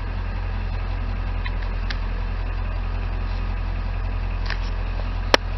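Ford 7.3 L Powerstroke V8 turbo-diesel idling steadily, heard from inside the truck's cab as a low, even rumble. A single sharp click comes near the end.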